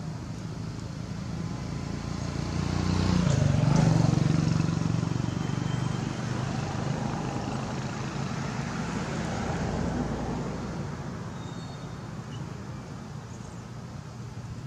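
Motor vehicle engine passing: a low hum that swells to its loudest about four seconds in and fades, with a second, smaller swell around ten seconds.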